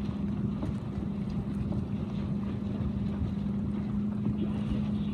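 Small motorboat's engine idling with a steady, even hum, with wind buffeting the microphone.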